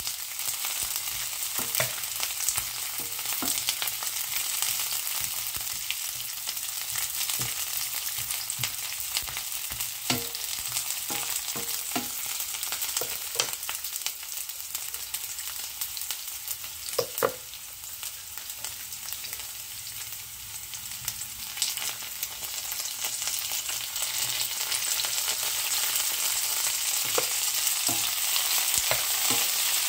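Onions, garlic and green pepper strips sizzling in oil in a nonstick frying pan, a steady hiss with scattered clicks as a wooden spatula stirs and knocks against the pan.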